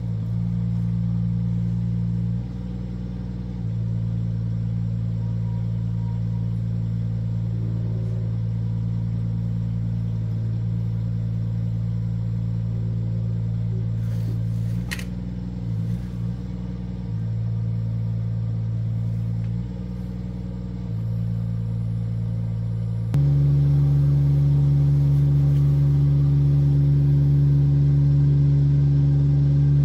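Engine of a compact tracked crane running steadily as it lifts an old wooden utility pole, its speed stepping up and down several times as the hydraulics take load. About three-quarters of the way through it steps up to a higher, louder pitch and holds there.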